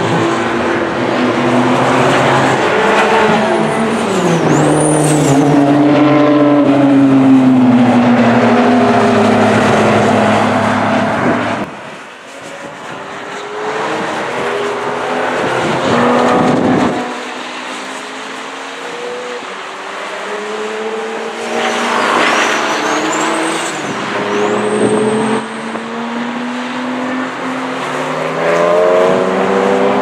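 Several track-day cars, mostly Porsches, passing one after another, their engines rising and falling in pitch as they lift and accelerate, with brief high tire squeals twice. The sound drops off abruptly about twelve seconds in before the next cars come through.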